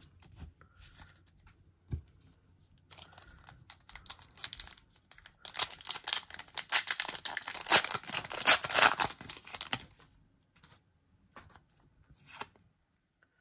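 Pokémon booster pack's foil wrapper being torn open and crinkled: a dense run of crackling that lasts several seconds and is loudest in the second half, then a few light rustles near the end as the cards are handled.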